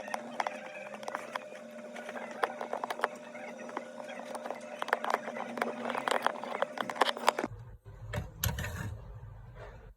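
Small repair tools clicking and tapping against a phone's parts in quick, irregular succession over a steady hum. About seven and a half seconds in, the sound cuts to a low rumble with a few scattered clicks.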